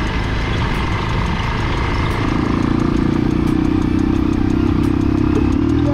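Motorcycle engine running while being ridden, a steady rumble whose engine note grows a little louder and steadier about two seconds in.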